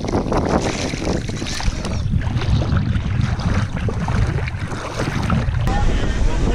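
Wind buffeting the camera's microphone in a strong low rumble, with water lapping and splashing close to the lens.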